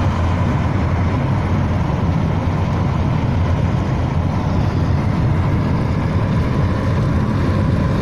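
Steady engine and road noise inside the cab of a Peugeot Boxer van cruising at highway speed, a low rumble with no change.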